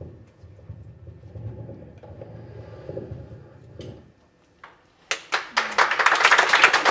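Audience applause breaking out about five seconds in, dense clapping that is the loudest sound. Before it, a low steady hum stops about four seconds in, followed by a second of near silence.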